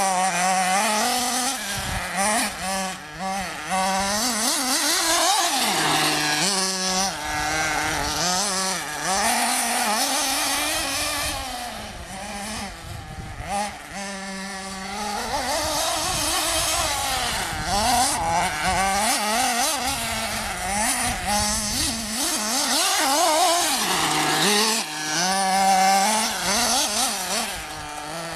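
Small two-stroke engine of a radio-controlled off-road buggy running at high pitch, its pitch repeatedly rising and falling as the throttle is opened and closed.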